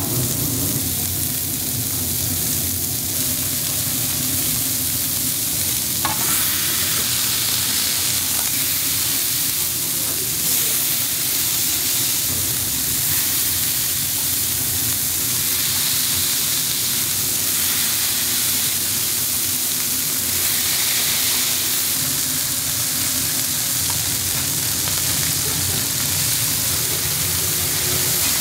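Food frying with a steady sizzle, over a low steady hum.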